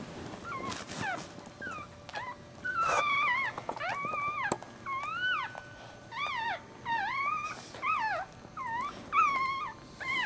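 Newborn Maltese puppies crying in a string of short, high-pitched squeaks, each call rising and falling in pitch, about one or two a second.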